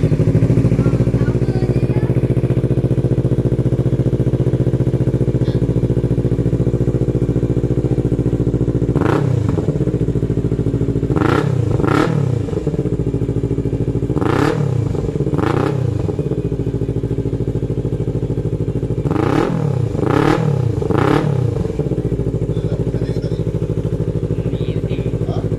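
Yamaha MT25's 250 cc parallel-twin engine running through an aftermarket full-system exhaust, idling steadily, with three bursts of quick throttle blips in the middle where the revs jump up and fall back.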